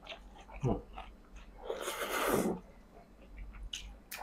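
A person's breathy exhale, lasting about a second, about two seconds in, with small eating clicks around it.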